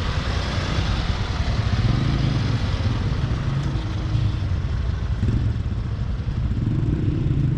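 A small motorcycle engine running steadily, with street traffic noise behind it.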